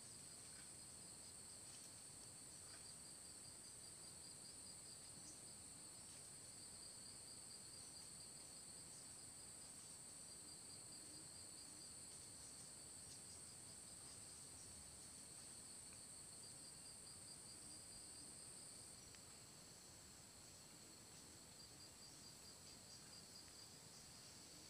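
Faint, steady chorus of insects: a continuous high pulsing trill with a second, even higher shrill tone above it that eases slightly about three quarters of the way through.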